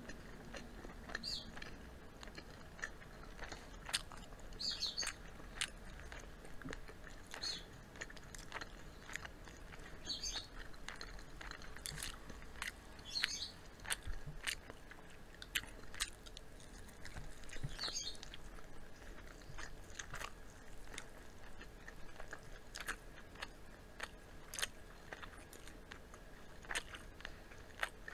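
Close-up chewing and biting of crispy fried chicken and fries, with many sharp, irregular crunches through the batter and wet chewing between them.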